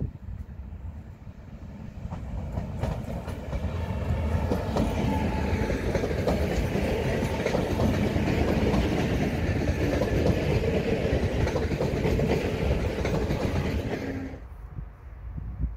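A train passing on the tracks, with many short wheel clicks. It grows louder from about two seconds in and cuts off suddenly near the end.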